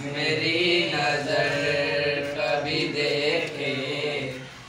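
Three boys singing a song together without accompaniment, drawing out long held notes with gliding pitch. A short break for breath near the end.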